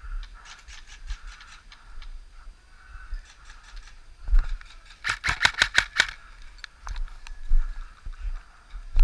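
Airsoft guns firing: a faint string of rapid shots near the start, then a louder burst of about eight quick shots in a second, about five seconds in. A low rumble of wind on the microphone runs underneath.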